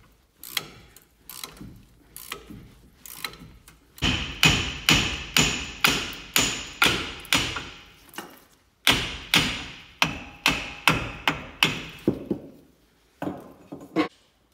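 Hammer blows on a seized steel brake caliper, a steady run of sharp strikes about two to three a second with a metallic ring, breaking off about eight seconds in and then resuming. Lighter clicking of tools comes before the hammering, and two last blows come near the end.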